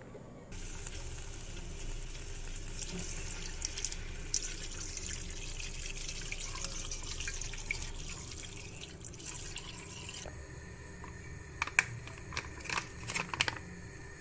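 A steady hiss with small crackles that stops abruptly about ten seconds in. A few light clicks and knocks follow near the end.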